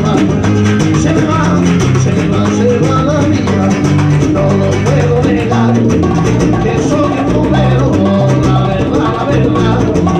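Live Latin rumba played instrumentally by a small band: strummed nylon-string Spanish guitar, electric bass and conga drums, in a steady, upbeat groove.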